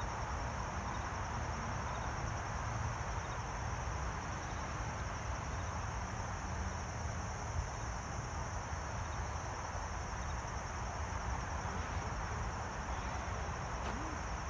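Steady high-pitched insect chirring, like crickets, over a low outdoor rumble.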